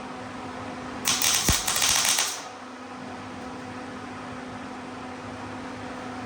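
Welding arc struck for a single short tack weld, about a second and a quarter of loud crackling starting a second in, over a steady low hum.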